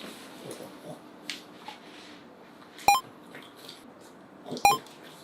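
Two short electronic beeps about two seconds apart, over faint room noise.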